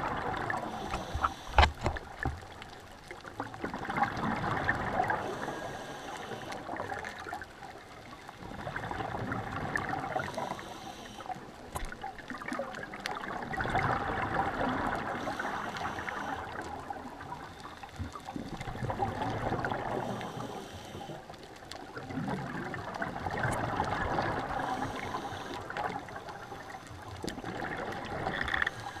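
Scuba diver breathing through a regulator underwater: a gurgling rush of exhaled bubbles swells and fades about every four to five seconds, with a fainter hiss between the surges. A single sharp click, the loudest sound, comes just under two seconds in.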